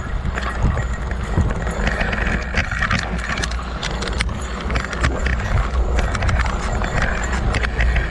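A fat-tire mountain bike rolling fast over a dirt singletrack: wind rumble on the handlebar-mounted camera, knobby tyre noise, and frequent sharp clicks and knocks of the bike rattling over bumps.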